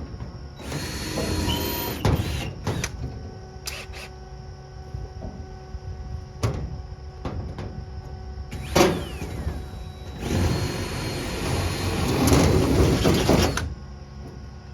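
A power tool run in two bursts, the first about a second and a half long and the second about three seconds, with a faint whine in each; sharp knocks and clicks of handled metal and tools come between them.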